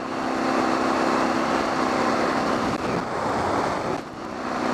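Suzuki DR650SE single-cylinder four-stroke engine running while riding, with wind rushing over a helmet-mounted microphone. The engine eases off briefly about four seconds in, then picks up again.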